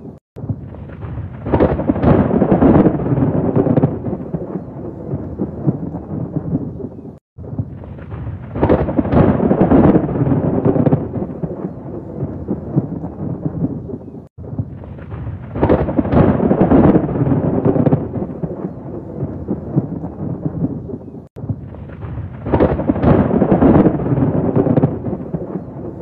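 Rolling thunder over steady rain: a low rumble swells loud about two seconds after each start and slowly fades. The same roughly seven-second stretch of thunder repeats four times, each separated by a very brief cut to silence, as in a looped recording.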